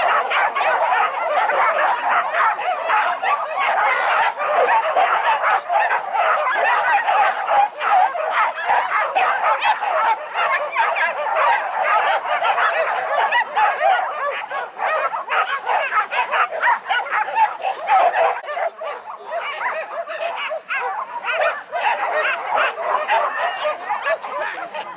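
A pack of hunting dogs barking and yelping, many at once and without a break, easing a little in the last few seconds.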